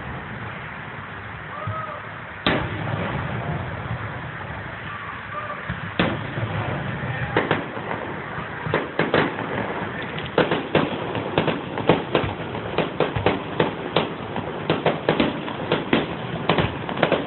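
Fireworks going off: a sharp bang about two and a half seconds in and another at about six seconds, then a rapid string of crackling pops that keeps getting denser toward the end.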